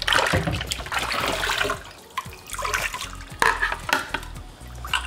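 Water from a kitchen tap running over a plastic Thermomix Cutter part as it is rinsed in the sink. After about two seconds the rushing sound drops away, and a few short knocks and clatters of the part being handled follow.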